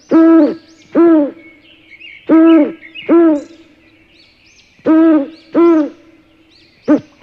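Owl hooting: loud, pitched hoots in pairs, a pair about every two and a half seconds, with faint higher bird chirps behind.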